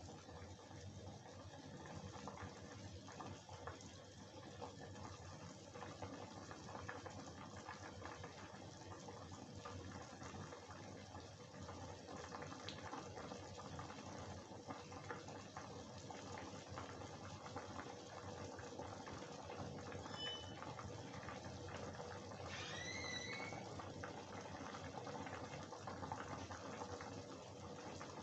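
Soybean and potato curry boiling in a kadhai: a steady, fine bubbling of the cooking liquid. A couple of brief high chirps come in about two-thirds of the way through.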